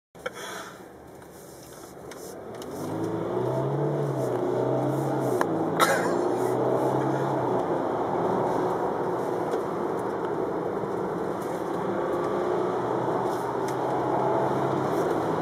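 Car engine and road noise heard inside the cabin while driving. The noise builds about two to three seconds in, and the engine note then rises and falls in several stretches as the car accelerates. A couple of sharp clicks come around five to six seconds in.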